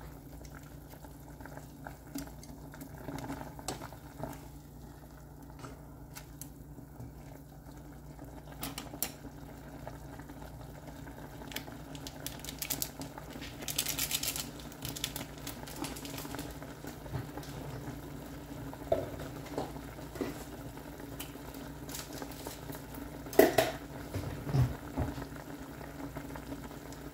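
Water boiling in a stainless steel saucepan around a block of instant noodles: a steady bubbling with scattered small pops and clicks. There is a sharper knock near the end, over a low steady hum.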